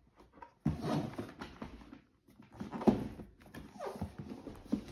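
Cardboard product box being handled and turned over on a wooden table: a few short rustling and scraping bursts, with a brief falling scrape near the end.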